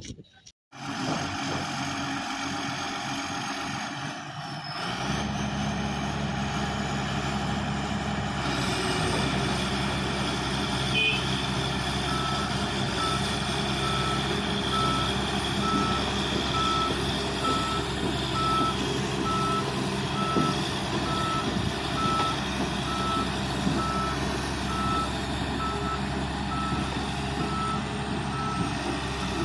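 Large excavator's Cummins diesel engine running steadily, growing stronger about five seconds in. From about twelve seconds in, a warning alarm beeps evenly about once a second over it.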